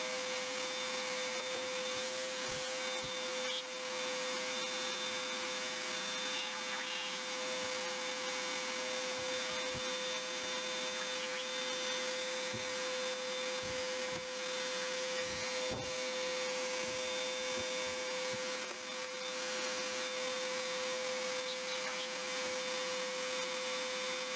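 A mini shop vac running steadily with an even whine, sucking clogged lint out of a clothes dryer's blower motor, with a few light knocks now and then.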